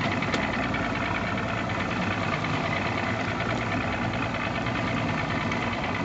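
Boat engine idling steadily.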